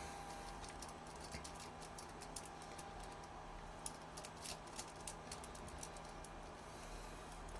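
Faint, irregular small clicks and ticks of a small flathead screwdriver turning the screws of a plastic screw-terminal block to clamp crimped wires.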